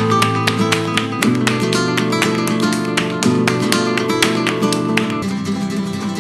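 Background acoustic guitar music in a flamenco style, with quick plucked notes and strums. The chord changes about five seconds in.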